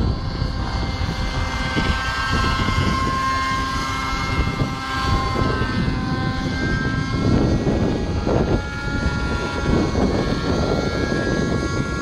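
Raptor 50 Titan nitro RC helicopter's glow engine and rotor blades whining steadily in flight, the pitch shifting slightly. Strong wind rumbles on the microphone, in heavier gusts about two-thirds of the way in.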